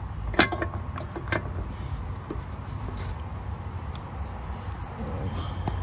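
Small clicks and taps of plastic and metal as a headlight bulb is worked into its housing and the wire retaining clip is moved. A few sharp clicks come in the first second and a half, then fainter scattered ticks, over a steady low hum.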